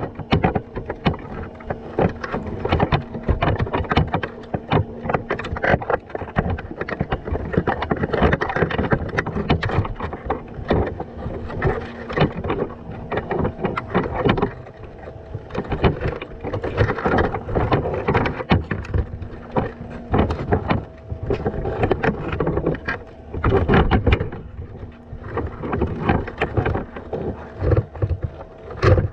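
Underwater sound picked up by a camera sitting in a wire crab trap: dense, irregular crackling and knocking of the water and trap, with a faint low hum that comes and goes.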